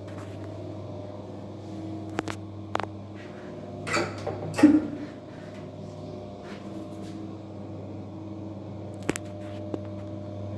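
A steady low hum with a few faint steady tones over it, broken by several short clicks and knocks, a noisier cluster of them about four to five seconds in.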